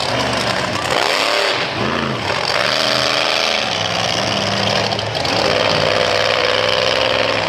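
Monster truck engines revving hard, their pitch swinging up and down in repeated surges, then held high and steady for the last few seconds.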